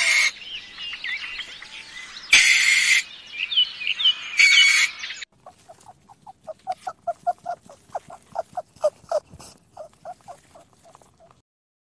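Birds chirping, broken by three loud hissing bursts. Then young rabbits chewing fresh greens, a rapid run of small crunching bites about four a second.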